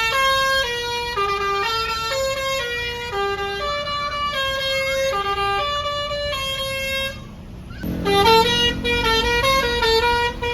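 Basuri telolet bus horn playing a tune of steady, stepped notes. The tune breaks off briefly about seven seconds in, then resumes with quicker notes over a lower steady tone.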